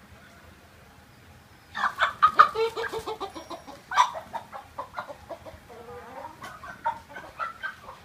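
Chickens squawking and clucking. A loud burst of agitated calls comes about two seconds in, another sharp call follows near four seconds, then quieter clucking.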